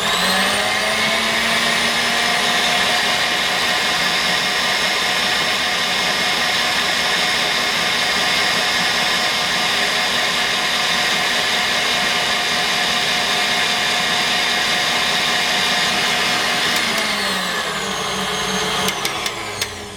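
Electric mixer whisking egg whites to stiff peaks. Its motor whine climbs in pitch as it speeds up, runs steadily, then falls away as it winds down near the end.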